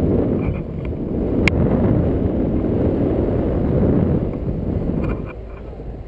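Airflow buffeting the camera microphone on a tandem paraglider in flight: a loud, low, unsteady rush, with one sharp click about a second and a half in. The rush eases about five seconds in.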